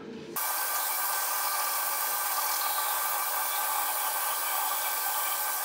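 Electric toothbrush running steadily while brushing teeth: a constant hiss with a faint steady whine, starting suddenly about half a second in.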